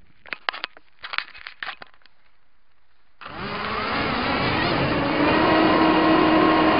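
Scattered clicks and rustles of handling, then about three seconds in the small electric motors and propellers of a tiny Hubsan-clone quadcopter start with a sudden, steady high whine, heard up close from its onboard camera. The whine grows louder over the next second or two as the quad spins up to fly.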